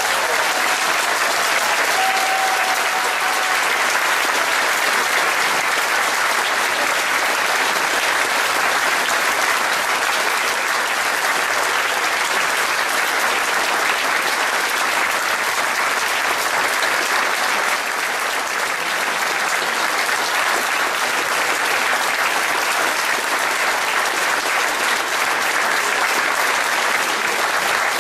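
Large audience applauding, a dense, even clapping that holds at a steady level throughout.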